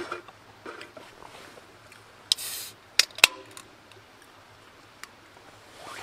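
A can of Kloud beer being opened: a sharp crack of the ring pull and a short hiss of escaping gas, followed about half a second later by two sharp metallic clicks.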